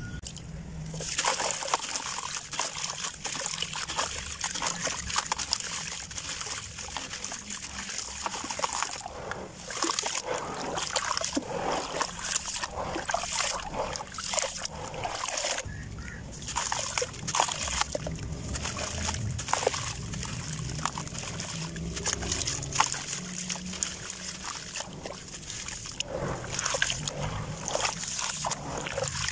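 Hands sloshing and squeezing crumbled gritty sand in a basin of water: splashes and trickles, with many small irregular crackles of the wet grit.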